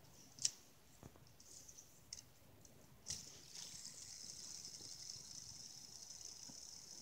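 Fidget spinner being handled and flicked, with a few sharp clicks, the loudest about half a second in. From about three and a half seconds in, a faint, steady high whir as the spinner's bearing spins freely.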